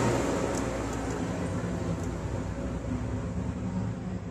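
Steady rushing air noise over a low hum, slowly easing quieter, like a small fan or blower running.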